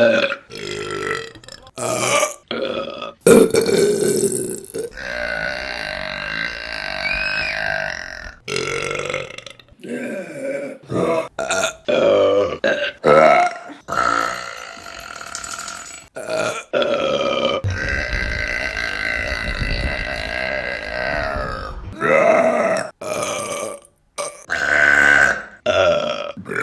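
A string of women's burps, one clip after another: many short burps and a few long, drawn-out ones, the two longest lasting about four seconds each, roughly a fifth of the way in and about two thirds of the way in.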